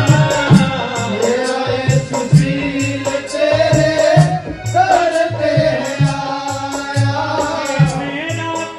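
Hindu devotional song (bhajan): a singing voice holding long, wavering notes over steady low drum beats and jingling percussion.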